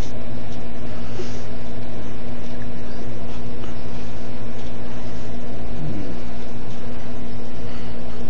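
A steady, loud machine hum with a constant low tone over a hiss.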